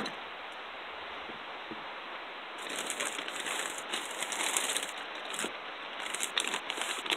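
Clear plastic parts bags crinkling in the hands, in repeated bursts from about two and a half seconds in, over a steady hiss. A single sharp click at the very start.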